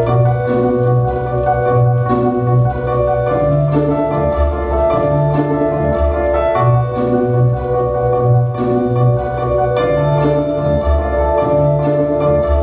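Contemporary ballet score playing: layered sustained tones over a pulsing bass, with short percussive strikes about twice a second.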